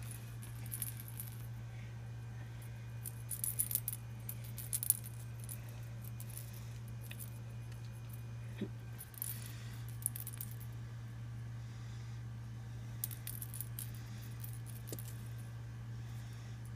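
Light metallic jingling and rattling in four or five short clusters as a kitten plays with a string toy dangled in a wire crate, over a steady low hum.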